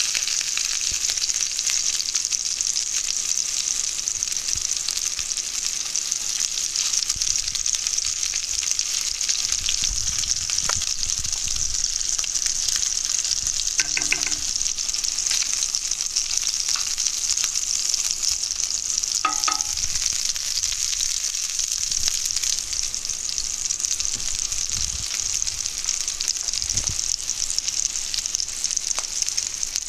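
Meatballs frying in oil in a skillet: a steady high sizzle, with a wooden spoon stirring and turning them in the pan.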